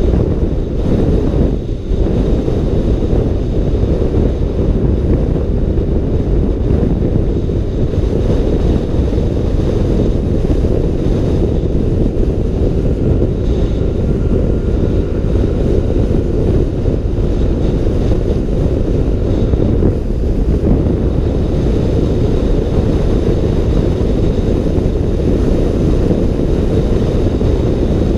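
Steady, loud wind buffeting the microphone of a camera riding on a moving motor scooter.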